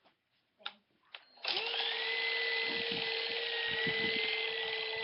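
Remote-control helicopter's electric motor starting up suddenly about a second and a half in and running at a steady high whine, after a couple of small clicks.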